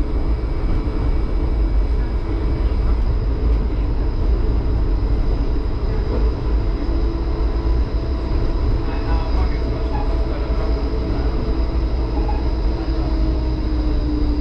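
HermeLijn tram under way on street track, heard from inside the cab: a steady low rumble of wheels on rails, with a whine from the traction equipment that falls slowly in pitch near the end.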